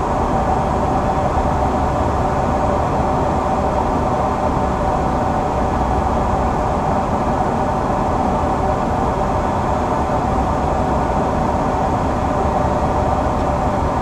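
Steady flight-deck noise of an Embraer 175 airliner descending on approach: the rush of air over the cockpit and the hum of its turbofan engines, with a steady high tone running through it.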